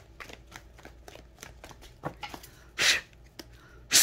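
Tarot cards being shuffled by hand: a run of light card clicks, with a louder swish of cards about three seconds in and a sharp snap at the end.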